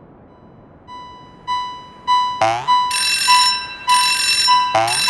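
Railroad crossing warning bell ringing in an even beat, about one and a half strikes a second, starting faint about a second in and growing louder. A second, brighter crossing bell joins at the same pace about three seconds in, with short cartoon sweep effects twice.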